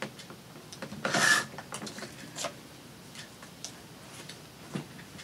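Paper and craft tools being handled on a work table: a half-second rustling scrape about a second in, then scattered light clicks and taps.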